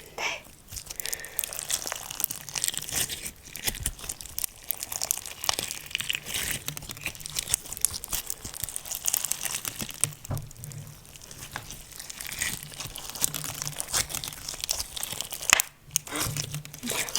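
Slime being squished and stretched by hand: a dense, continuous crackle of tiny pops and clicks, pausing briefly near the end.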